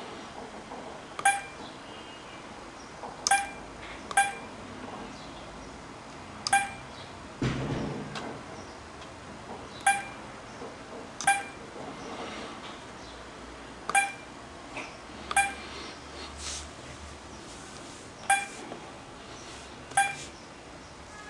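Tradetec TR141-C touchscreen car head unit giving its short key-press beep with each tap on the screen, about ten identical high beeps at irregular intervals. A brief low rumble comes about seven seconds in.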